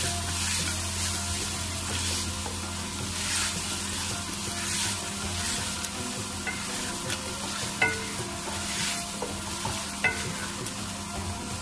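Potatoes, peas and tomatoes sizzling in a metal pot while a wooden spatula stirs them, with a swish every second or so. A few sharp knocks of the spatula against the pot come in the second half.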